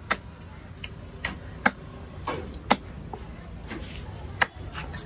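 Heavy knife chopping fish into chunks on a wooden chopping block: sharp knocks at irregular intervals, about nine in all, a few of them much louder than the rest.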